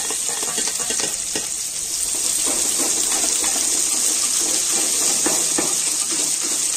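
Sliced onions sizzling steadily in hot oil in an aluminium pot, with a spatula scraping and clicking against the pot as they are stirred.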